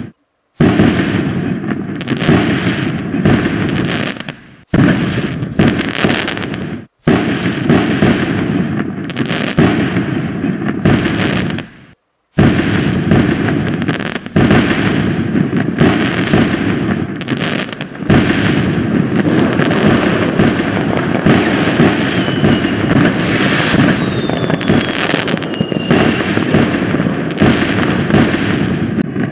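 Fireworks sound effect: dense, continuous crackling and popping of exploding fireworks. It cuts out briefly a few times and starts again, like a clip being replayed, with faint falling whistles about two-thirds of the way through.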